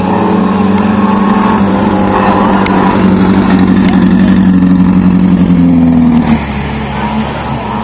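Off-road race vehicle engine running loud and steady, its pitch creeping slightly upward before the sound drops off suddenly about six seconds in.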